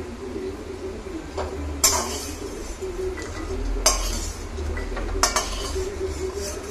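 Metal spatula stirring cashews in a metal kadai as they dry-roast, scraping and clanking against the pan with about five sharp clanks over a steady low hum.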